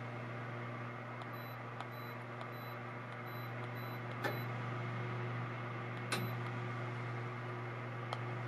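Electric fireplace running, its heater fan giving a steady hum. Sharp clicks come about four and six seconds in, and a run of faint short high tones about two and a half a second plays in the first half. At the very end a click comes and the hum stops as the fireplace shuts off.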